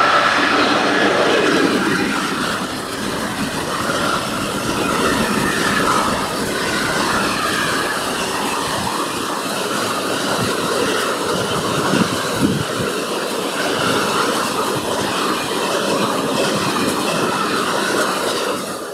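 Freight train of tank wagons passing close by behind an SNCF Fret electric locomotive: steady rumble and clatter of wheels on the rails, with a thin steady high tone running over it. The noise drops off at the very end as the last wagon goes by.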